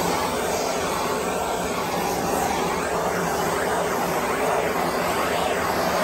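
Handheld gas torch burning with a steady rushing hiss of flame, swept over fresh epoxy to pop the air bubbles.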